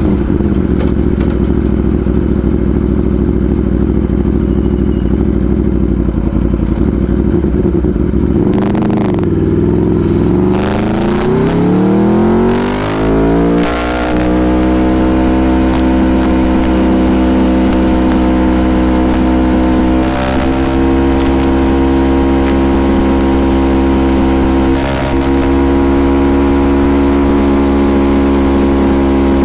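Aprilia Tuono Factory motorcycle engine under way: it runs steadily, then about ten seconds in the revs climb for several seconds and settle at a higher, steady pitch. A few sharp clicks and brief dips in loudness break in along the way.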